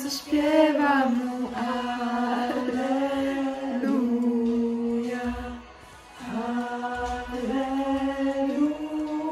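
Singing with long, drawn-out held notes, breaking off briefly about five and a half seconds in and then carrying on.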